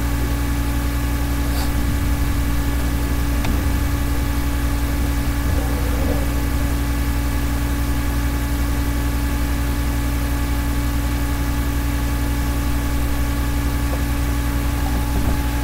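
A steady low hum with several steady tones above it.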